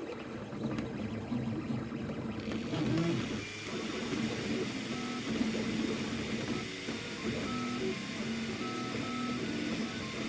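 Anet A8 3D printer's stepper motors whirring as the print head moves, in short steady tones that keep jumping between pitches. A steady hiss grows stronger about two and a half seconds in.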